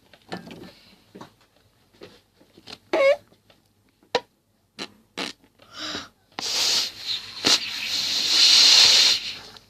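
Someone blowing hard into a lump of bubble-making crystal clay putty. Air rushes and sputters out in a long hiss that starts about six seconds in, after a few short squelches and clicks of the putty being handled. The bubble does not inflate.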